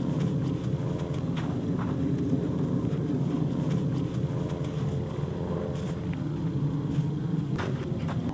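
A motor running steadily, a low rumble with a hum. Over it come a few faint scuffs of footsteps on loose dirt as someone climbs.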